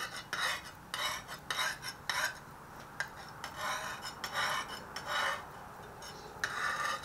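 Coarse side of a handheld sharpening stone scraped in short strokes along the edge of a survival shovel's steel blade: a rasping grind at about two strokes a second, with a short lull near the middle and another near the end.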